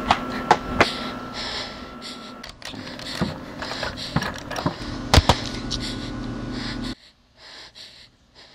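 Edited film soundtrack: a low steady hum with a thin high tone under scattered clicks and knocks, breaking off briefly about two and a half seconds in and dropping out abruptly about seven seconds in.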